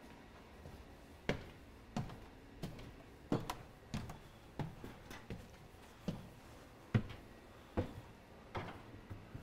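Footsteps climbing a flight of stairs: a steady run of sharp knocks, about three steps every two seconds.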